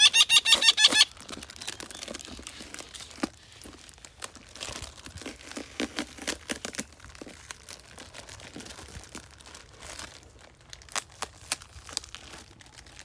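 A baby parrot gives a quick burst of shrill calls, about ten in a second, then crinkling, rustling and small clicks as the box and packing are handled.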